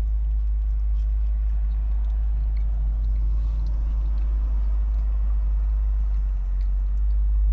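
Steady low rumble of an idling vehicle heard inside its cabin, with faint chewing and small clicks of eating.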